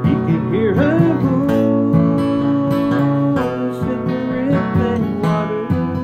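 A man singing to his own strummed acoustic guitar, holding one long note through the middle.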